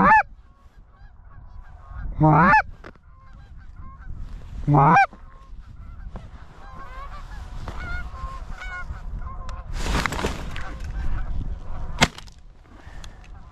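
A goose call blown hard three times, each a loud rising honk, answered by Canada geese honking. About ten seconds in there is a rustle, then a single shotgun shot.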